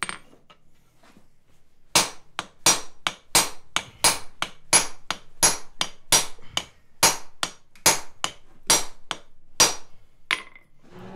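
Hand hammer blows on the end of a 1-inch round 1084 steel bar stood upright on the anvil, upsetting the hot end so it thickens. The sharp, ringing metal-on-metal strikes start about two seconds in and come about three a second, stopping just before the end.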